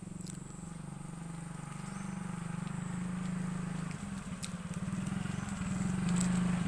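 Motor scooter's small single-cylinder engine idling with a fast, even pulse, with a few light clicks around the middle.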